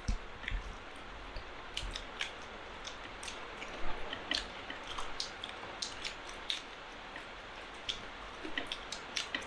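Eating sounds as several people eat chicken biryani by hand: irregular wet smacks and clicks of chewing, with fingers squishing through the rice.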